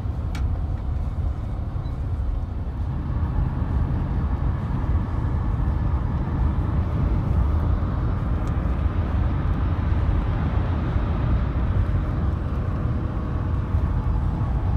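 Steady rumble and road noise of a moving car, heard from inside the cabin.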